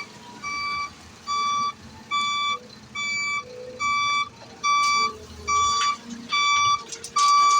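Backup alarm on heavy earthmoving machinery beeping steadily, a little over one beep a second and growing louder toward the end, over a low engine rumble. A few sharp knocks come near the end.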